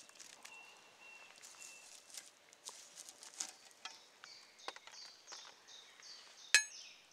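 A steel camping pot set down on campfire embers, with one sharp metallic clink near the end. Scattered small ticks and crackles run through, and a bird sings short repeated high notes from about four seconds in.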